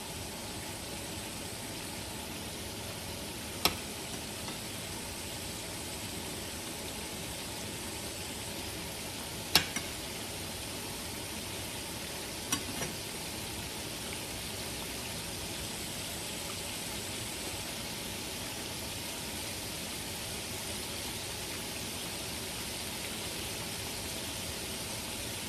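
A steady hiss, with three sharp clinks a few seconds apart from a metal spoon and ceramic dishes as marinated chicken pieces are lifted from the bowl onto a plate.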